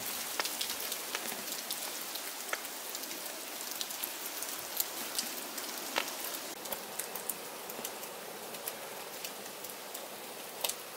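Light precipitation pattering: irregular soft ticks over a steady hiss.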